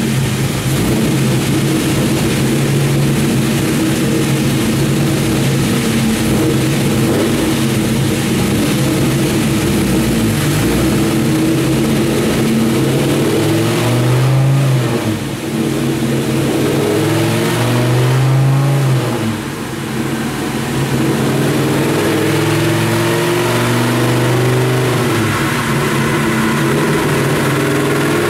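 Dodge Ram SRT-10's 8.3-litre Viper V10 running on a chassis dyno, a steady idle note with two short revs about halfway through.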